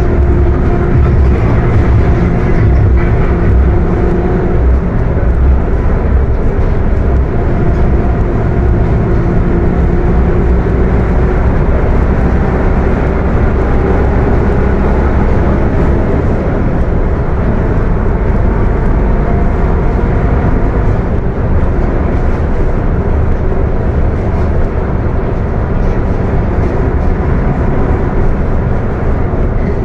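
Mercedes-Benz OF-1721 diesel bus running steadily under way, with a loud growling whine from its transmission; the tones drift only slightly in pitch.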